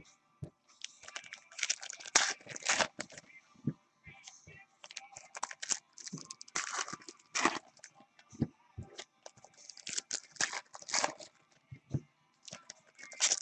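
Foil trading-card pack wrappers crinkling and tearing as they are handled, along with cards being shuffled on a stack. The sound comes as short, irregular rustles throughout.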